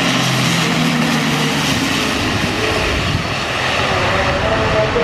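Twin-turboprop transport aircraft landing: a steady, loud drone of its two turboprop engines and propellers, with the tones shifting in pitch near the end as it reaches the runway.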